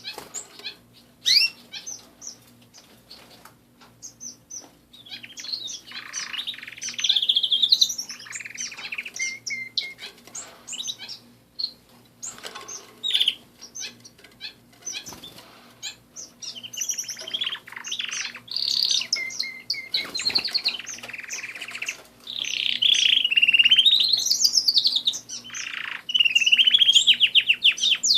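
Domestic canaries singing: bouts of fast trills, rolls and sweeping whistled notes from more than one bird, with short lulls between phrases. A faint steady low hum runs underneath.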